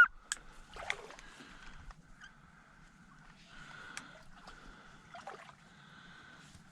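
A short quack right at the start, then faint water sounds with a few light clicks over a low steady hum.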